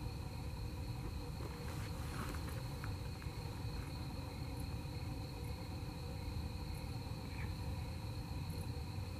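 Night insects such as crickets trilling steadily in several high, unbroken tones, over a low steady rumble.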